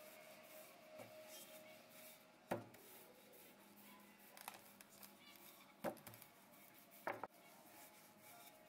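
Wooden rolling pin rolling over a sheet of soft brioche dough: faint rubbing, with a few short knocks.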